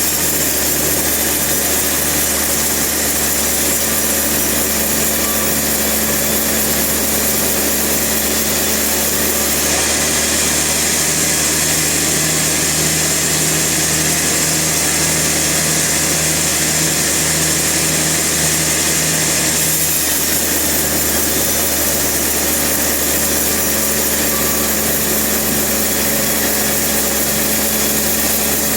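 Sawmill machinery running steadily: a continuous engine hum under a high hiss. The hiss brightens about ten seconds in and eases again near twenty seconds.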